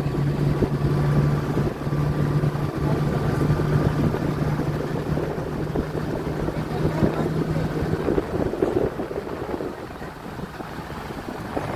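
Vehicle engine droning steadily under rushing wind buffeting the microphone, heard from the moving vehicle. The engine hum fades about eight seconds in and the overall sound drops a little, leaving mostly wind and road noise.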